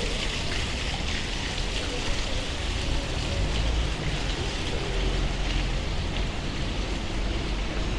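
Outdoor ambience of a pedestrian shopping street: a steady low rumble and hiss with faint, distant voices of passers-by.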